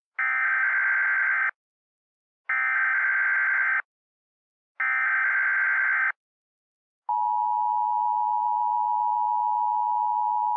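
Emergency Alert System SAME header: three bursts of buzzing digital data tones, each over a second long with a second's gap between them. About seven seconds in, the steady two-tone EAS attention signal begins.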